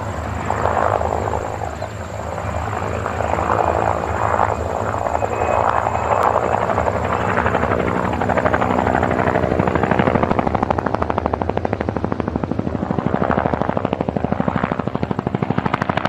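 Helicopter sound effect: the rotor's steady, rapid chop over the engine, the chop growing more distinct about two-thirds of the way through.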